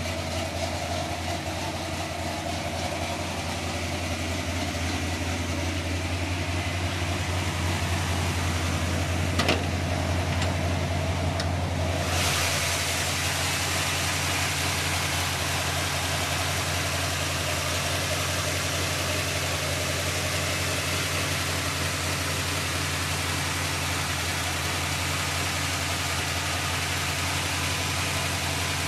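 Carbureted V8 of a hot rod truck idling steadily, with a single sharp click about nine and a half seconds in. A brighter hiss joins the engine sound from about twelve seconds on.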